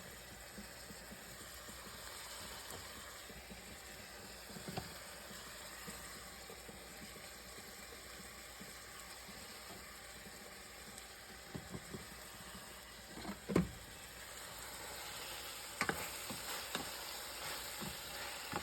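Saltfish and gully beans (susumba) sizzling steadily as they fry in a pot, with a few short knocks of a utensil against the pot as they are stirred.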